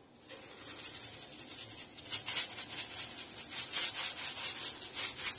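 Seasoning shaker shaken rapidly over a roast, the granules rattling in quick strokes, several a second, growing louder about two seconds in.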